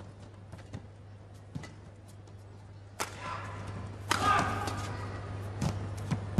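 Racket strikes on a badminton shuttlecock during a rally: sharp, separate hits a second or so apart, the strongest about three seconds in. From then on, arena crowd noise swells and stays up.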